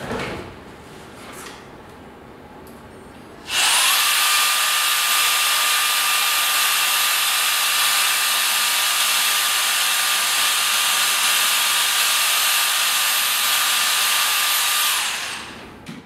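SYLPH portable 1400W hair dryer switched on a few seconds in. Its whine glides up as the motor spins up, then it runs steadily with a rush of air and a high whine, and it winds down near the end. A few faint knocks come before it starts.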